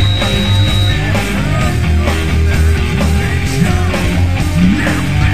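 Loud rock music with distorted guitars, steady bass and a driving beat.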